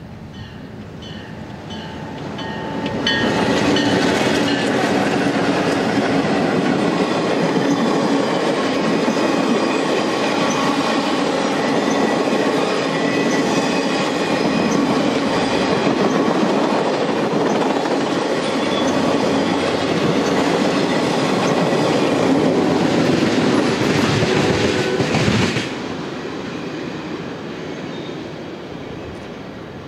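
Passenger train passing close by at speed: the diesel locomotives come up loud about three seconds in, then the passenger cars roll past with steady wheel clatter. The sound drops off suddenly near the end as the last car goes by, then fades away.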